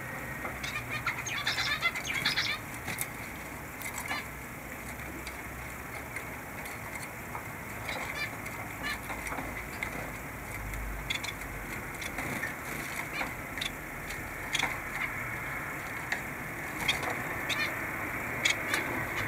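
Small caged finches: a few short high chirps about two seconds in, then scattered soft ticks and wing flutters as the birds move about the cage, over a steady background hiss.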